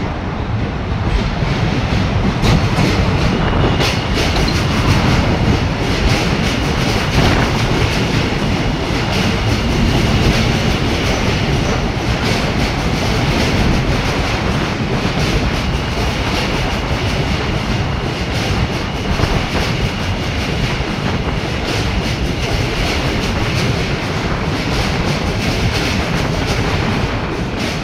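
A New York City subway train running over the Williamsburg Bridge's steel tracks: a steady loud rumble with wheels clattering over the rail joints. A faint high whine comes and goes.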